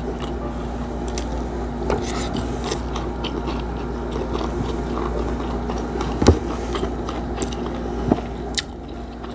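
Close-miked chewing and mouth sounds of a person eating rice and fried milkfish with her fingers, with a few sharp clicks, the loudest about six seconds in.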